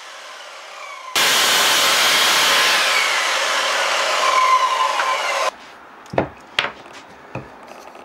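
Mitre saw cutting through 12mm MDF, loud and steady. It starts suddenly about a second in and stops abruptly about five and a half seconds in. A few light knocks of the cut MDF pieces being handled follow.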